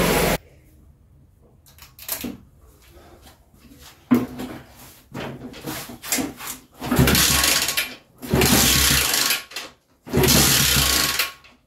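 50cc mini chopper engine kicked over, firing and running for about a second at a time, three times in the second half, on a little fuel put straight into the engine with the filthy carburettor bypassed. Before that, quiet handling with a sharp knock about four seconds in.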